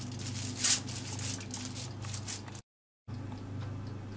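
Hands pressing and patting minced meat flat on floured aluminium foil: irregular soft squishing and rustling of the foil, the loudest stroke under a second in, over a steady low hum. The sound drops out completely for about half a second midway.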